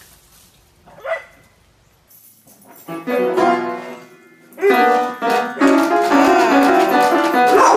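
A dog pawing an upright piano, striking clusters of notes that ring on. From about the middle the dog howls along, its voice bending up and down over the piano notes.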